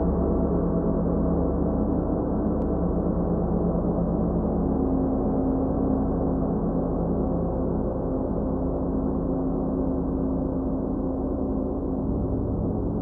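Ambient background drone music: held low tones layered into a steady, unbroken wash, with no beat.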